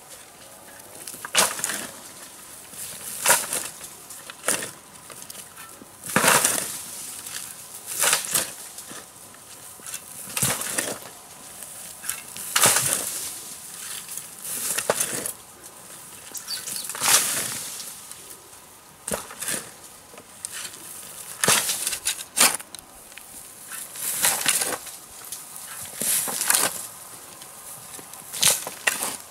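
A digging tool biting and scraping into soil, a short crunching stroke about every one to two seconds.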